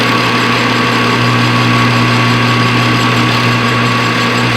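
Metal lathe running steadily: a constant motor hum with a steady higher whine over it.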